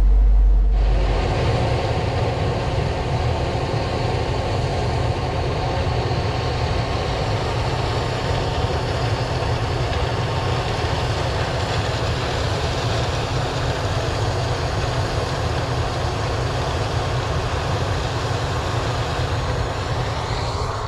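Harvest machinery running steadily: a diesel engine's hum under a dense, even rushing noise that sets in about a second in.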